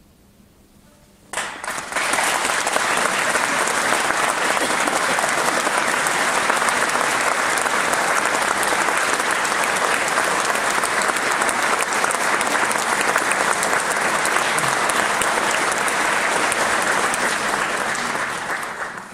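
Concert audience applauding. The clapping breaks out suddenly about a second in, after a brief hush, stays steady and dense, and fades near the end.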